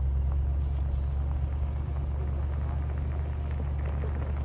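2012 Range Rover on BFGoodrich KO2 all-terrain tyres driving slowly over snow: a steady low rumble of engine and tyres, with a few faint ticks.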